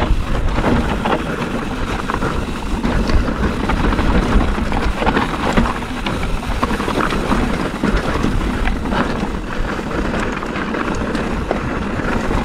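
Wind buffeting the microphone of a mountain bike's on-board camera as it rolls fast down a rocky gravel trail. Tyres crunch over loose stones, and the bike gives off scattered clicks and knocks as it rattles over bumps.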